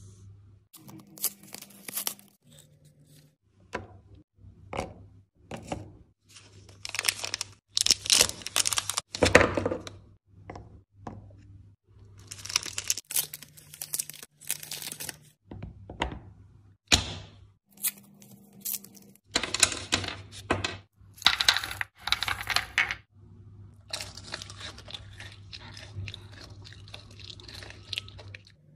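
Close-miked plastic and foil wrappers of chocolate bars and wafer cones being torn open and crinkled, in a string of rustling bursts with a few short sharp snaps between them.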